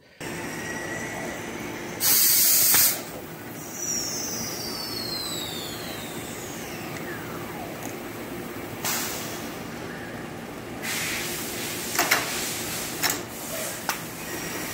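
Machine-shop lathe running steadily with a Hall collet chuck on the spindle. A loud hiss lasting about a second comes two seconds in, followed by faint falling whines. A longer hiss comes around ten seconds in, and a few sharp clicks follow near the end.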